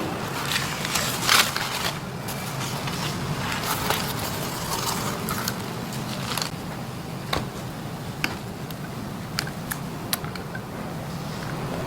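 Hands working with craft materials: crinkling and scraping with a few sharp clicks, the loudest about a second in, over a steady low hum.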